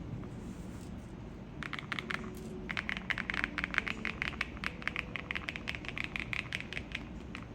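Typing on a mechanical keyboard: a short flurry of key clicks about a second and a half in, then rapid, steady keystrokes from about three seconds on.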